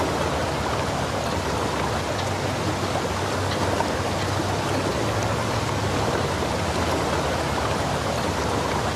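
Steady rushing noise of waves and wind by open water, without distinct events.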